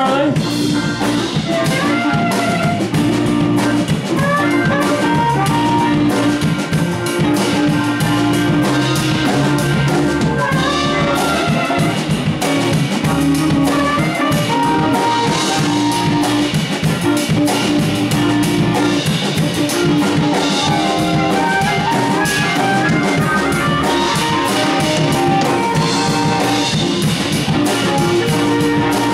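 A band playing an instrumental passage with drum kit and other instruments, with no singing.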